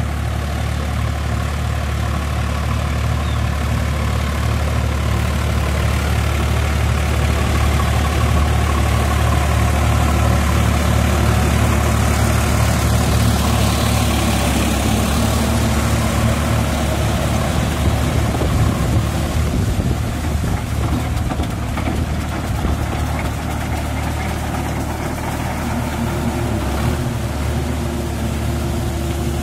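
Sonalika DI 47 4x4 tractor's diesel engine running steadily under load, pulling a Shaktiman rotavator whose blades churn the mud and water of a flooded paddy field.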